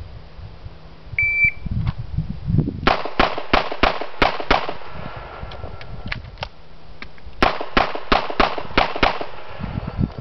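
Shot timer start beep, then a revolver fired in a rapid string of shots, a pause of about three seconds with small clicks as it is reloaded with a speed loader, and a second rapid string of shots.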